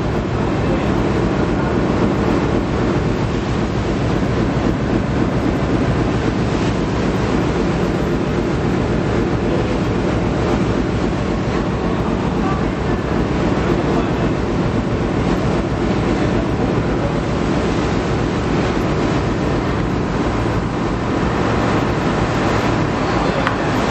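Steady, loud low rumble of a Star Ferry's engine running as the ferry crosses, with a faint steady hum above it.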